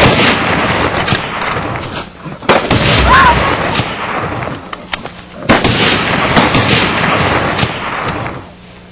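Rifle shots fired at a charging lion: sudden loud bangs about two and a half and five and a half seconds in, over a loud continuous rushing noise.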